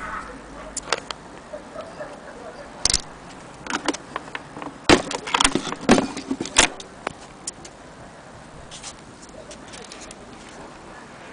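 Scattered sharp clicks and knocks of something being handled, with a quick cluster of them about five to seven seconds in.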